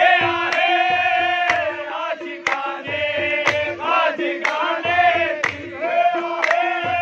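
A group of men chanting a devotional song together, holding long notes, over a steady beat of sharp strokes about twice a second.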